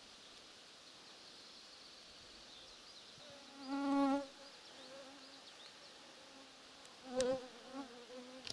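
A flying insect buzzing close past the microphone. A loud pass comes about halfway through, and a second, wavering pass follows near the end.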